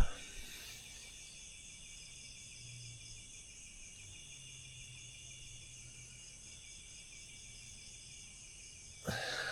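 A steady chorus of insects such as crickets, trilling in several high bands, over a faint low hum. A single sharp click right at the start.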